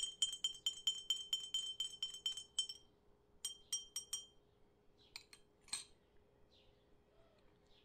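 Metal teaspoon stirring tea in a tulip-shaped glass, clinking quickly against the glass with a bright ring several times a second. The clinking stops about three seconds in, followed by a few separate taps.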